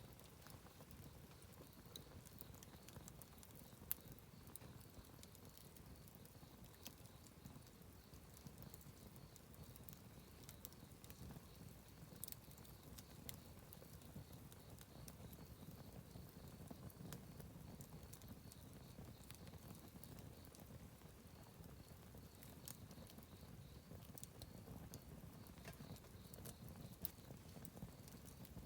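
Wood campfire burning quietly: a soft low rumble of flame with scattered, irregular faint crackles and pops from the burning wood, one sharper pop about four seconds in.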